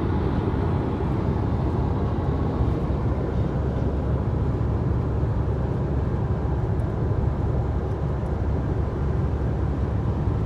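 Steady low rumble of a vehicle under way, engine and road noise, holding even throughout.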